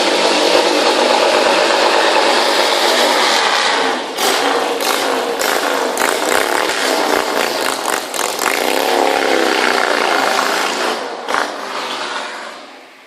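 Motorcycle engine roaring and revving loudly, with a run of sharp cracks and a rise and fall in pitch partway through, then fading away near the end.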